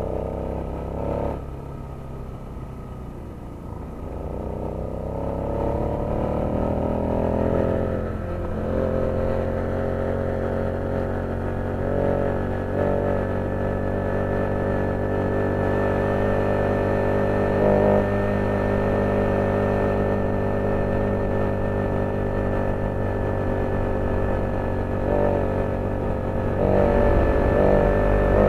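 Small engine of a motorized bicycle running under way, its pitch rising and falling as it speeds up and eases off.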